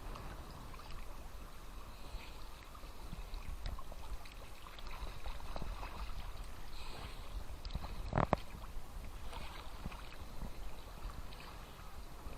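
Small Black Sea waves splashing and lapping at the shore, with fine crackling of water, and one sharper, louder thump about eight seconds in.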